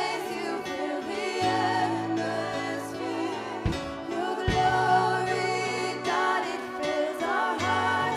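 A woman singing a slow worship song through a microphone, holding long notes with vibrato, over a band's held low chords with a couple of drum hits.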